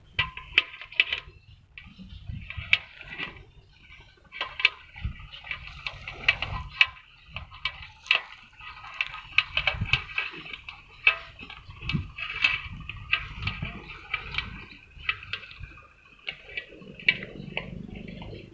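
Water buffalo eating feed from a metal bowl while being hand-milked into a steel bucket: irregular sharp clicks and scrapes, several a second at times, with a few dull low knocks.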